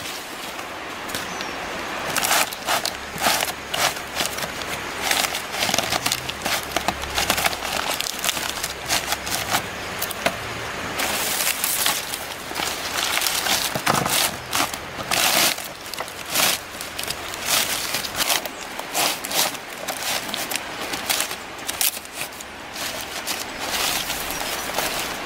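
Green palm leaves rustling and crackling in irregular bursts as they are handled and pressed against bamboo poles.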